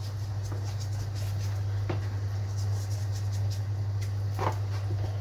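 A steady low hum, with the quiet simmer of diced potatoes and vegetables cooking over low heat in olive oil in a frying pan, beside a pot of peas boiling in water. A couple of faint clicks come about two seconds in and again near the end.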